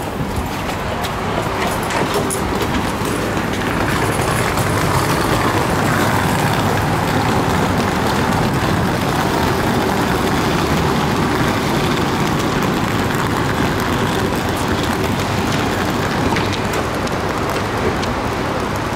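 Steady rumble and hiss beside a standing Pendolino electric train at a station platform, with faint footsteps.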